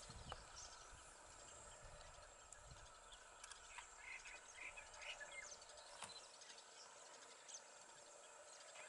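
Near silence: faint outdoor ambience with a steady high insect drone, a few soft chirps and an occasional faint click.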